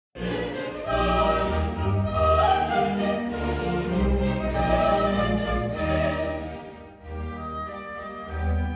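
Classical orchestral music with singing voices, sustained notes swelling and fading; it dips about seven seconds in and then comes back.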